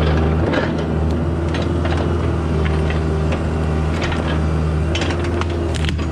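Skid steer loader's diesel engine running steadily under work, with scattered clanks and rattles from the machine and its bucket.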